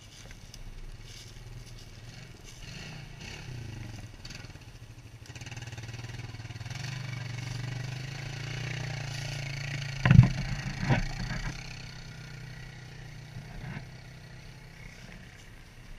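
ATV engine coming closer and running past, its note building and then fading. Two sharp knocks just after ten and eleven seconds in are the loudest sounds.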